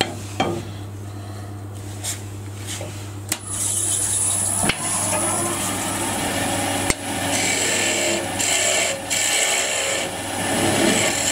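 A few knocks as a turning tool is handled at the tool rest. Then the wood lathe starts about three seconds in, its motor running with a steady high whine. From about seven seconds a hand tool cuts into the spinning wooden box blank, a rough scraping that comes and goes as the inside wall is trued flat.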